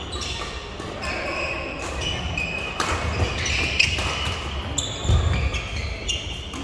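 Badminton rally on an indoor court: sharp racket hits on the shuttlecock every second or so, with sneakers squeaking on the court floor and a couple of heavy footfalls near the end.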